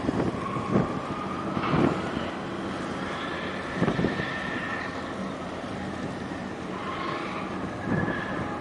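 Wind buffeting the microphone at the waterside, with several sudden gust thumps over a steady low hum.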